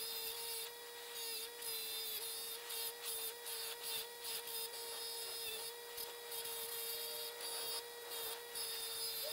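Bench grinder's wire wheel running with a steady motor hum, broken by repeated scratchy bouts of brushing as rusty vise parts are pressed against it to strip off rust.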